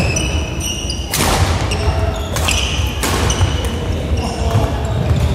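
Badminton rally: several sharp cracks of rackets striking the shuttlecock, about a second or so apart, with short high squeaks of court shoes on the wooden floor. A steady low rumble fills the large hall underneath.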